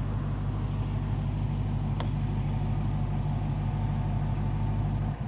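The 2019 Dodge Challenger Hellcat's supercharged Hemi V8 idling with a steady low rumble, then switched off about five seconds in, the sound cutting off suddenly. A single sharp click comes about two seconds in.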